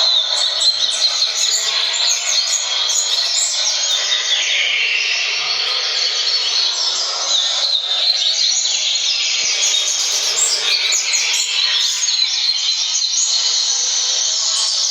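Double-collared seedeater (coleiro) singing fast, unbroken song over a played recording of tournament coleiro song, the bird pouring out rapid phrases in reply.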